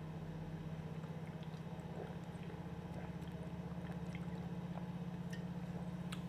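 A person gulping tarragon soda (Tarkhun) from a glass bottle, with faint swallowing and liquid sounds, over a steady low hum.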